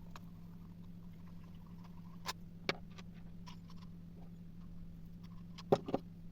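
A few sharp clicks and light knocks from small objects being handled, the loudest two close together near the end, over a steady low hum.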